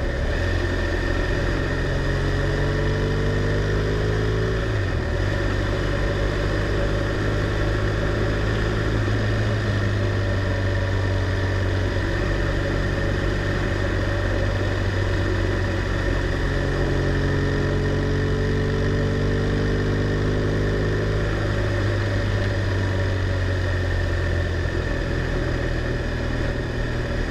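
BMW R1200R LC's liquid-cooled boxer twin running under way, its pitch rising and falling with throttle and gear changes: it drops near the start and again about five seconds in, then climbs for several seconds past the middle before easing off. A steady rush of wind noise runs underneath.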